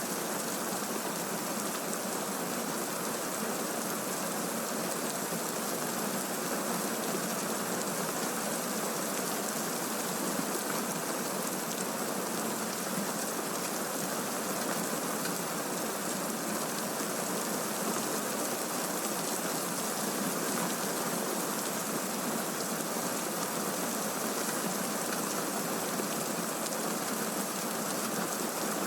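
Steady, heavy rainfall from a thunderstorm recording: an even hiss of rain with no thunderclaps or other separate sounds in this stretch.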